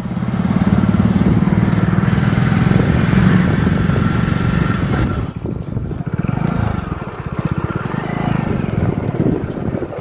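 Motorcycle engine running while riding, with wind rushing past. The sound dips briefly about halfway through, then picks up again.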